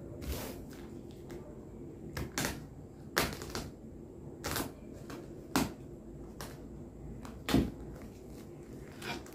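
Plastic parcel wrapping rustling and crinkling as it is cut and pulled open with a small utility knife, in short separate bursts roughly once a second.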